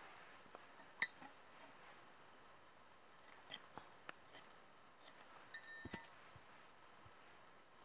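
Faint, sharp clicks and snicks of a knife blade cutting a thin wooden stick: one loud snap about a second in, then a scatter of smaller clicks a few seconds later.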